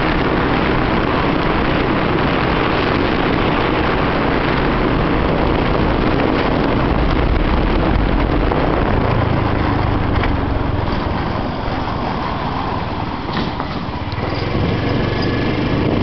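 Small motorcycle engine running while riding, with a steady rush of wind over the microphone. The sound eases off a little about three-quarters of the way through, then picks up again.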